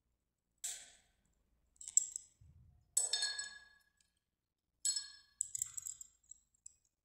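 Small glass Hero's engine on its wire hanger clinking against a drinking glass as it is dipped into the water and lifted out. About five separate sharp glass clinks, some ringing briefly.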